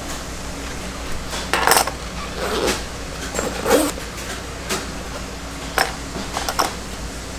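Pliers working metal zipper stops back onto a zipper: a series of short metal clicks, clinks and scrapes, about six of them, spaced irregularly.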